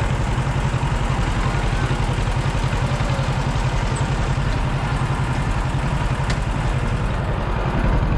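An engine running steadily, with a low rumble that pulses rapidly.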